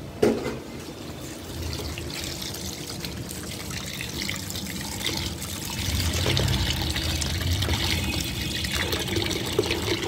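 Tap water pouring into a steel bowl of raw duck meat pieces as hands swish and rub them clean, the splashing growing louder about six seconds in. A short knock right at the start.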